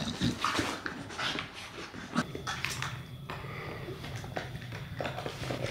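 A Staffordshire bull terrier puppy and an adult Staffy playing together: scuffling, with short dog noises.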